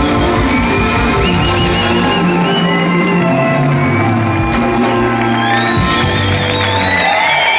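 Ska band playing live: saxophone, trumpet and trombone over bass, drums and keyboard. The bass drops out near the end as the tune closes, with whoops and cheering from the crowd.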